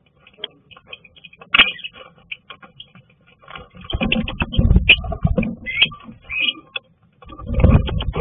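Two lovebirds fighting inside a small wooden nest box: claws and beaks clicking and scratching on the wood and nesting material, with short shrill squawks. Two louder scuffles of wings beating against the box and nest, about four seconds in and again near the end.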